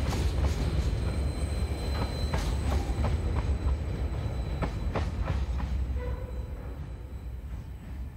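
Empty coal hopper wagons of a freight train rolling past, with a heavy rumble and sharp clicks of wheels over rail joints. The tail of the train passes and the sound fades away over the last few seconds as the train moves off.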